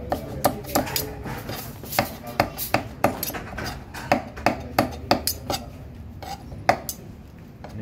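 Knife chopping meat and tomato on a chopping board for soto: sharp, irregular knocks, about two to three a second.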